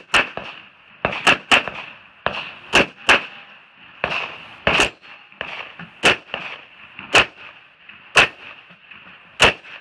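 Glock 17 9mm pistol firing about a dozen shots, some as quick pairs and others about a second apart.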